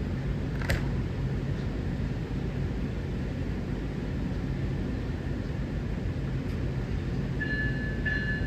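Steady low background rumble. Near the end a railroad crossing's warning bell starts ringing, a high ding that repeats about every 0.7 seconds, as the crossing activates for an approaching train.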